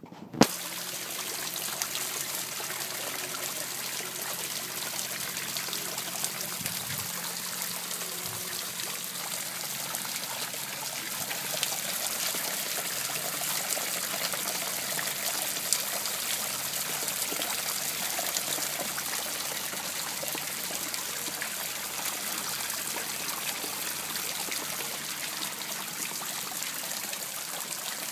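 Water splashing and trickling steadily from a koi pond's small rock waterfall and fountain, the fountain spray pattering onto the pond surface. A single sharp click about half a second in.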